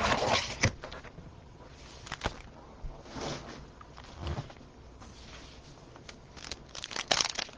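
Faint, scattered rustles and light taps of trading cards and packaging being handled, with a quick run of small clicks near the end.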